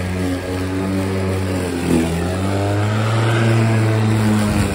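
Milwaukee M18 cordless electric lawnmower running under load while cutting thick, long grass on two 2 Ah drill batteries. Its steady motor-and-blade tone sags briefly about two seconds in as the grass loads it, then recovers.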